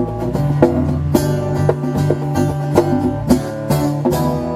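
Live acoustic music led by a strummed acoustic guitar playing chords in a steady rhythm, settling on a held, ringing chord near the end.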